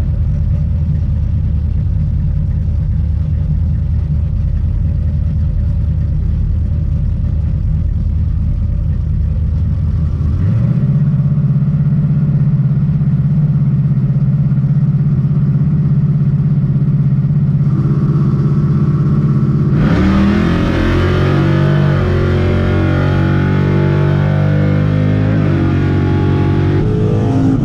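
Drag car's big-block V8 running, at first at a low steady idle, then held at a higher steady speed from about ten seconds in. About twenty seconds in it revs up hard and runs louder with its pitch climbing, then eases off near the end.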